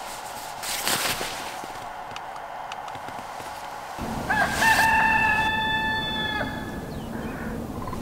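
A rooster crowing once, starting about four seconds in: short rising notes, then one long held note of about two seconds. Before it there is a faint steady hum and a brief rustle of a blanket about a second in.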